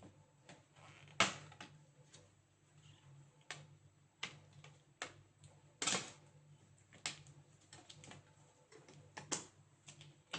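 Irregular small clicks and taps of hands and tools working on a laptop's plastic and metal case, about a dozen in all, the loudest about a second in and near the middle, over a faint steady low hum.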